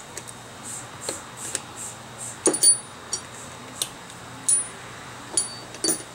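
Irregular sharp metallic clicks and clinks, a few with a brief high ring, as stubborn bent valves are worked loose and pulled out of their guides in a cylinder head. The loudest clinks come about two and a half seconds in and again near the end.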